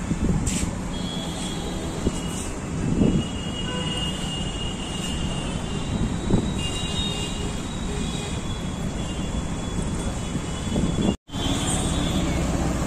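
Steady low rumbling outdoor noise, with faint high whistling tones now and then. It drops out completely for a moment about eleven seconds in.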